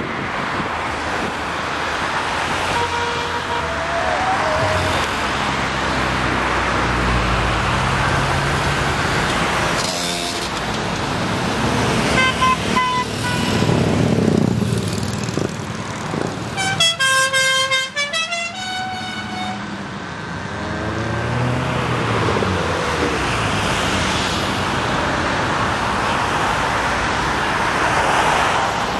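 A stream of cars passing close by, engines and tyre noise rising and falling as each goes past. Car horns toot in short blasts a little before the middle, then a longer run of honking from several horns a little past the middle, some sliding in pitch as the cars pass.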